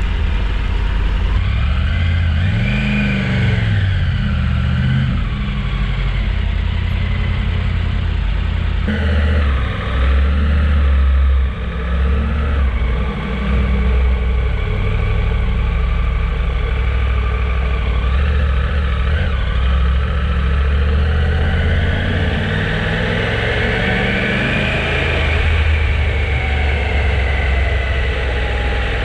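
Motorcycle engine running while riding, its pitch rising and falling as the bike speeds up and slows down.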